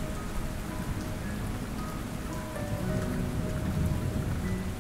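Steady rain falling, with a faint low rumble, under soft background music of long held notes.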